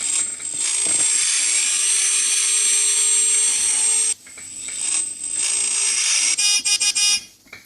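Scale-model car sound card playing a recorded engine through its small speaker, buzzy and tinny, for about four seconds before cutting off. Near the end it gives a quick run of short, evenly repeated tones.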